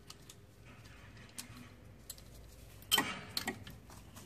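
Ratchet and 14 mm socket being fitted onto a stubborn alternator bolt: a few scattered clicks, with a louder clatter of clicks about three seconds in and another shortly after.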